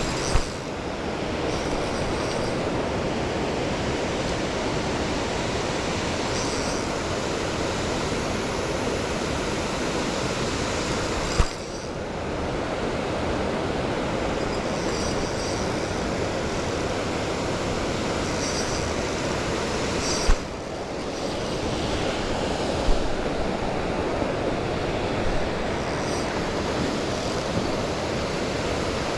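Waterfall running with a steady, even roar, broken by three sharp knocks: one just after the start, one about eleven seconds in and one about twenty seconds in.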